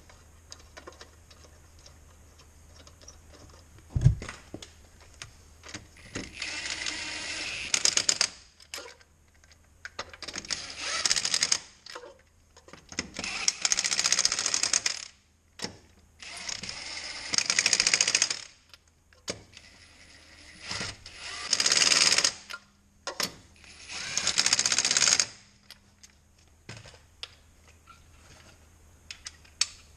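Impact wrench running lug nuts onto a wheel in six short bursts of hammering, one per nut, with a single loud thump about four seconds in.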